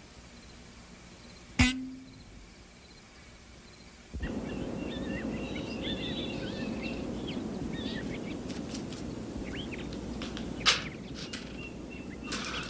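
A single sharp knock, then from about four seconds in a steady outdoor background hiss with birds chirping now and then, and a few light clicks.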